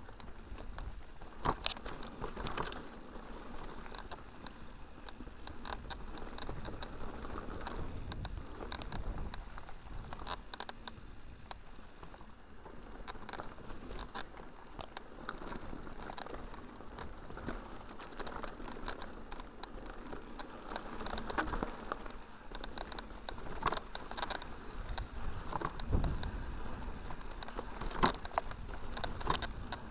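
Mountain bike rolling downhill over a rough dirt and stone track: a steady crunch and patter of the tyres on grit, with frequent sharp knocks and rattles as the bike hits bumps. The loudest knocks come about a second and a half in and again near the end.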